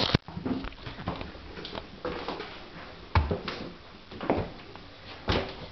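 Footsteps climbing wooden stairs: uneven thuds about once a second.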